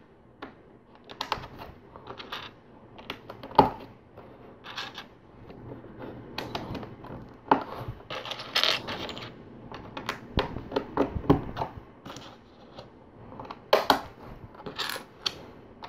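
Loose plastic LEGO bricks clicking and rattling as a hand picks through a pile, with the snap of pieces pressed onto a plate; the sharpest clicks come about a quarter of the way in and again near the end.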